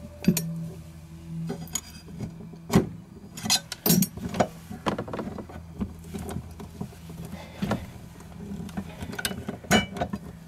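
Irregular clicks, knocks and clinks as metal lock parts and a screwdriver are handled and fitted inside a motorcycle's plastic top case, over a steady low hum.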